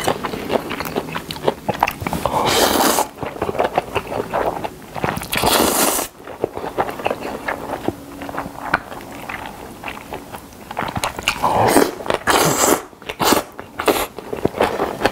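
Close-up eating of thin somen noodles in spicy sauce. There are four long slurps as the noodles are sucked in, with wet chewing and lip smacking between them.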